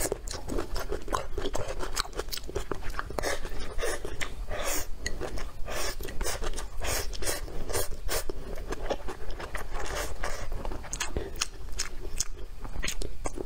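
A person chewing mouthfuls of stir-fried vegetables and rice, a quick uneven run of small crunches and mouth clicks.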